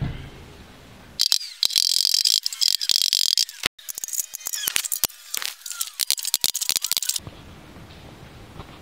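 Rapid metallic clicking and clattering from work on a galvanized steel trash can being turned into a snare drum, over a high hiss. It starts suddenly about a second in and cuts off suddenly a little before the end.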